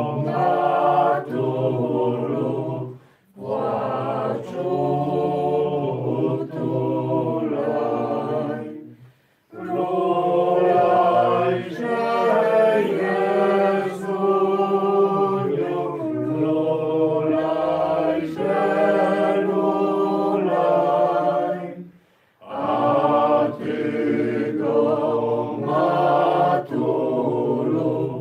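A group of voices singing a hymn unaccompanied, in long sung lines separated by short pauses about three, nine and twenty-two seconds in.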